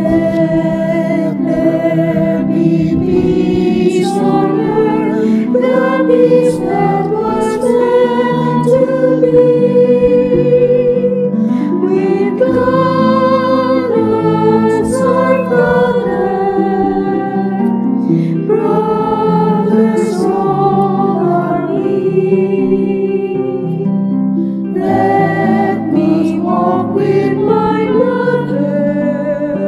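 Music: a song sung with vibrato over instrumental accompaniment.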